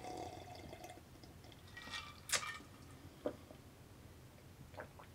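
A person drinking from a mug: faint sips and swallows, with a couple of short sharp clicks about halfway through.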